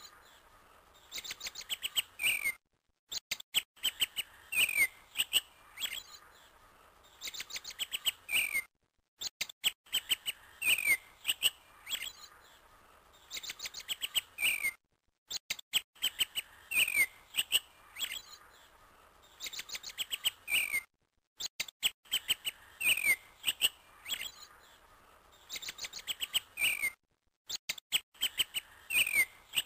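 A looped recording of small birds chirping: short falling whistles and quick trills. The same stretch of song repeats about every six seconds, with a brief dead-silent gap at each repeat.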